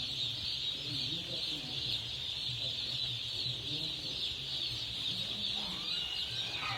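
A large flock of chickens calling all at once, a dense continuous chatter of many overlapping high calls, with a low steady hum underneath.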